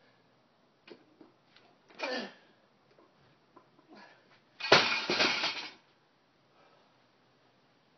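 A loaded barbell is dropped from overhead onto a paved driveway with a loud crash at nearly five seconds, then rattles and bounces for about a second. About two seconds in there is a short, breathy grunt of effort during the lift.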